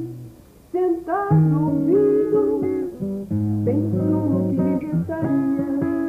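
Music: a plucked acoustic guitar with a singing voice over it. There is a brief pause about half a second in, then the guitar and voice come back in.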